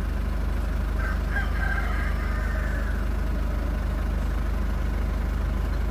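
Ford Ranger common-rail diesel engine idling steadily, just after being brought back from a no-start fault. About a second in, a rooster crows in the background for about two seconds.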